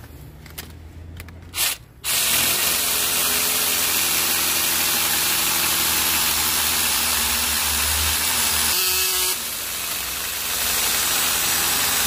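A mini chainsaw attachment driven by a 12 V cordless drill-driver starts about two seconds in, after a sharp knock, and runs steadily while sawing into a tree branch. It eases off briefly about nine seconds in, then bites again, labouring to cut through the wood.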